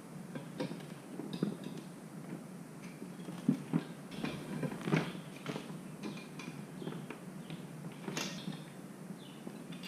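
Scattered clinks and knocks of metal tools against a motorcycle wheel rim, with rubber creaking, as a knobby dirt-bike tire is worked on the rim by hand.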